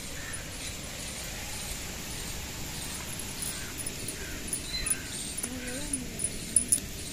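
Birds calling now and then over a steady background hiss, with a brief low wavering call about five and a half seconds in.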